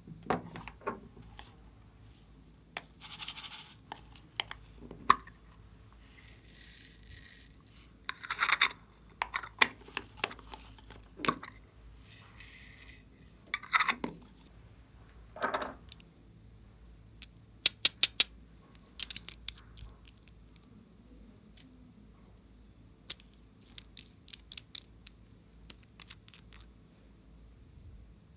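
Hands handling plastic makeup packaging, an eyeshadow compact and nail polish bottles: scattered sharp clicks and taps of plastic, with a few short stretches of scraping, and four quick clicks in a row about two-thirds of the way through.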